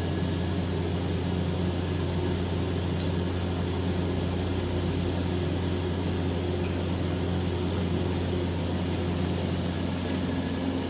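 Steady hum and hiss of TIG welding on stainless pipe, the argon arc running as filler wire is fed by hand, over the low hum of the welding machine and ventilation.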